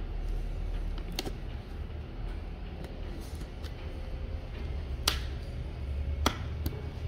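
Sharp clicks and taps from a cardboard box being opened by hand, as its packing tape is picked at with a pen and fingers: about four separate clicks, the loudest about a second in and about five seconds in, over a steady low hum.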